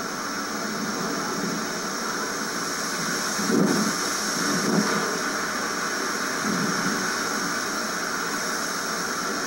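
Strong wind gust, put at 70 miles an hour, howling with a steady siren-like whistle over a rushing hiss, with a few louder low buffets on the microphone about halfway through.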